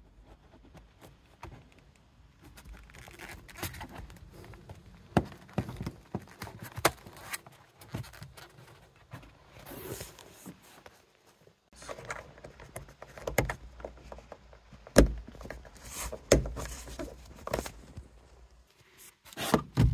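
Scattered plastic knocks, clicks and rubbing as an original Audi S3 8L sun visor is handled and pushed into its mount at the headliner. The sharpest knocks come in the second half.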